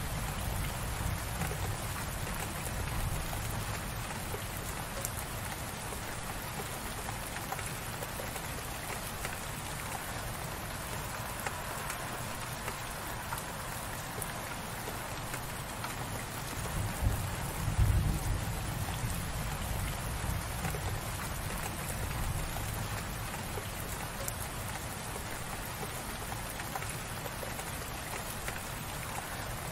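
Steady light rain falling, a dense even patter. A brief low rumble swells a little past the middle.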